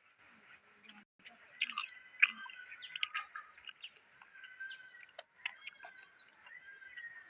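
Birds chirping in short whistled notes throughout, with scattered sharp clicks and knocks; the loudest knock comes about two seconds in.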